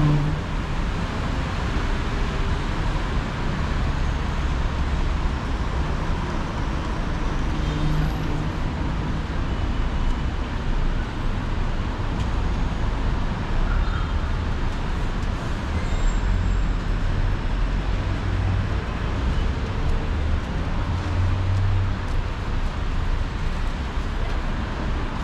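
Steady city street traffic: road vehicles passing with a continuous hum of engines and tyres, the low rumble swelling at times as heavier vehicles go by.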